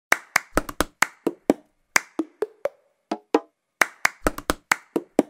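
Hand claps and a plastic drink bottle knocked on a hard tiled floor in a quick repeating rhythm, about four to five hits a second, like a cup-song routine. The claps are sharp and bright, and the bottle knocks give a short hollow ring.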